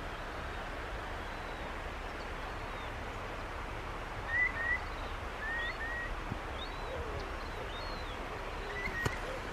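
Seabirds calling on the water over a steady outdoor background hiss. Short upslurred chirps come in pairs from about four seconds in, with a few higher calls and some low falling calls later.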